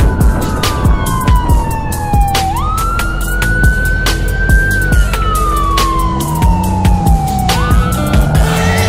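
An emergency-vehicle siren wailing, each cycle sliding slowly down in pitch and then jumping sharply back up, over background music with a steady beat. Near the end a car engine revs up.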